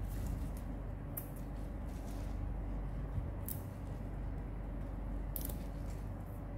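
Fresh arugula (gergir) being picked over by hand in a plastic basin, its leaves and stems rustling, with a few short, crisp snaps a second or two apart, over a steady low hum.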